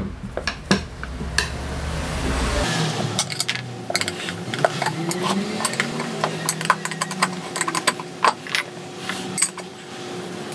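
Scooter tire being worked on its wheel rim by hand with tire levers: repeated irregular metallic clinks and knocks of levers and tools against the rim, with rubber rubbing between.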